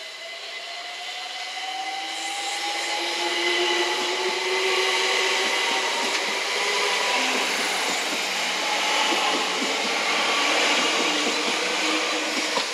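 London Overground Class 378 electric multiple unit running in alongside the platform and past close by. A motor whine rises in pitch over the first few seconds above the noise of wheels on rail, which grows louder as the train nears and then stays loud as the carriages pass.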